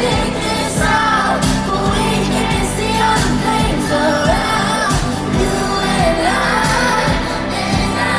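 Live pop song: a woman singing over a steady beat with heavy bass.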